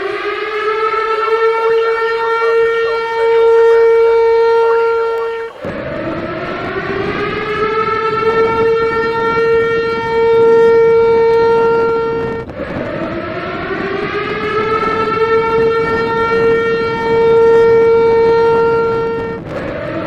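Tornado warning siren winding up in pitch and holding a steady wail, then cutting off abruptly and starting over, three times about every seven seconds.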